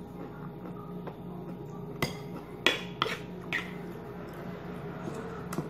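Spoon clinking against a ceramic bowl while eating: a few sharp clinks about two seconds in and another near the end.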